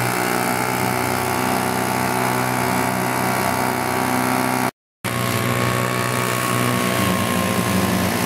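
Leaf blower running steadily at full speed, blowing air under a homemade hovercraft's round platform to lift it. The sound cuts out for a moment about five seconds in, then carries on unchanged.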